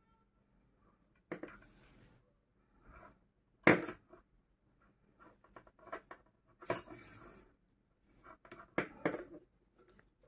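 Handling noise from sewing crochet onto a metal purse frame: scattered light clicks and clinks of the frame and needle, and rustles as the yarn is drawn through. One sharper knock comes nearly four seconds in.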